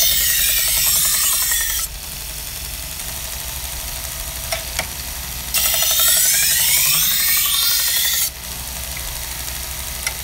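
AMK-75 belt knife sharpener running steadily while a santoku blade is pressed to its abrasive belt twice, each pass a loud grinding hiss of two to three seconds with a sliding squeal. The machine's motor hum carries on between the passes.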